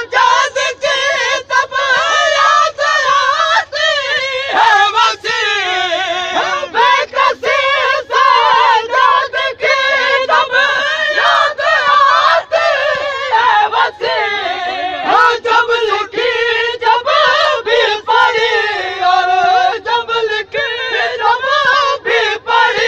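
A group of men chanting an Urdu noha in chorus, the lines wavering and overlapping. Under the voices runs a steady beat of sharp strokes about twice a second, the chest-beating of matam keeping time.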